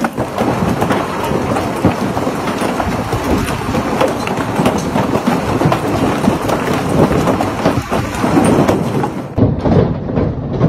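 Large hailstones pelting down hard: a dense, loud din of countless impacts on a boat dock and the water around it. About nine seconds in it becomes duller, as hail pounding a patio deck.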